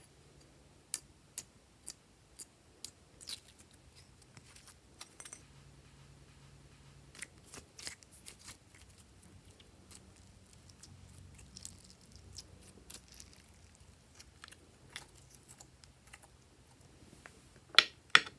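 Green glossy slime being scraped off a plastic tray and stretched by hand, giving scattered sticky clicks and small pops, with two louder clicks near the end.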